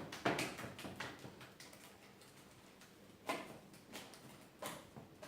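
Hands squeezing and kneading thick wet slime: soft crackling squelches and clicks that die away after about two seconds, followed by a few separate squishes.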